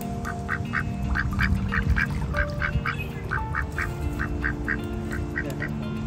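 Ducks quacking in a quick run of short calls, about three or four a second, with background music of held notes underneath.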